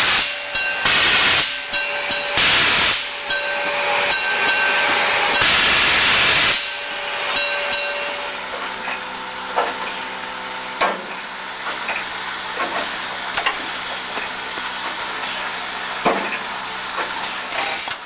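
Steam hissing in loud bursts, a second or so apart, from the class 50 steam locomotive 50 622 as it works past; the last burst is longer. After about eight seconds the hiss gives way to a quieter steady hum with a few sharp clicks.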